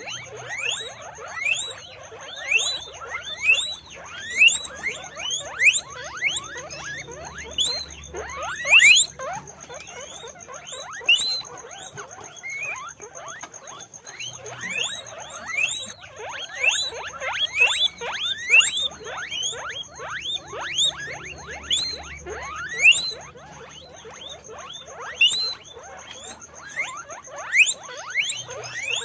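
Guinea pigs squeaking, a long run of short, high whistling calls coming in quick succession and often overlapping.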